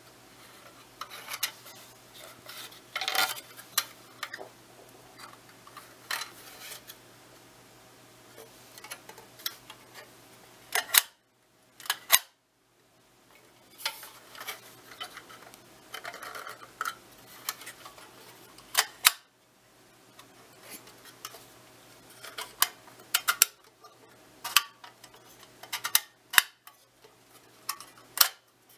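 Metal film insert and box body of a Zeiss Ikon Box Tengor 54/2 box camera being handled: irregular clicks, clacks and light rattles as the insert is moved in and out of the box, with several sharp snaps spread through and a few short quiet stretches.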